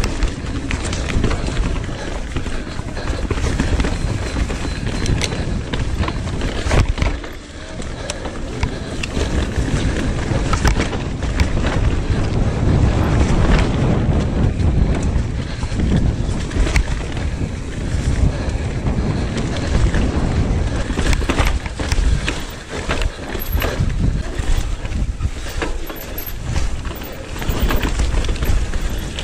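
Electric mountain bike descending a dirt trail covered in dry leaves: wind buffeting the microphone over the rolling noise of the tyres, with frequent sharp clicks and rattles as the bike runs over bumps.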